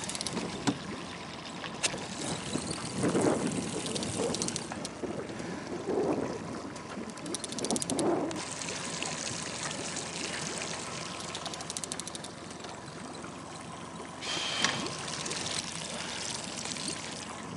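Choppy lake water lapping and splashing against the side of a small fishing boat, with two short bursts of rapid ticking about seven and eleven seconds in.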